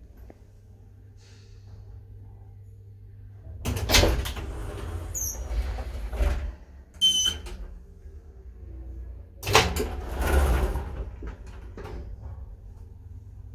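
Automatic centre-opening sliding car doors of a modernised 1970s Schindler elevator, opening with a rumble about four seconds in and closing again about six seconds later. A short high squeak comes between the two.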